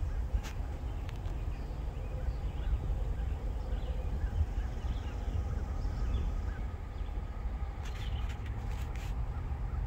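Trackside outdoor ambience: a low steady rumble with birds chirping here and there, and a few sharp clicks near the end.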